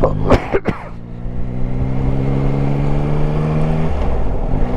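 The three-cylinder engine of a Yamaha Tracer 9 GT motorcycle running steadily at low road speed, with two sharp knocks about half a second in. The engine note dips about four seconds in, then picks back up with a brief rise in pitch.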